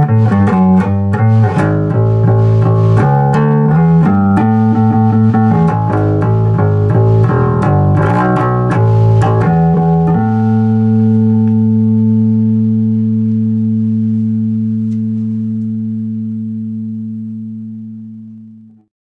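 Fender Precision Bass with a maple neck, played fingerstyle: a quick run of plucked notes, then about ten seconds in a final low note rings on and fades away.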